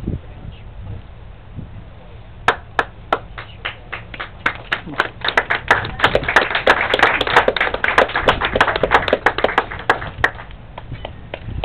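A small group applauding. A few separate claps start about two and a half seconds in, build into steady applause, then die away near the end.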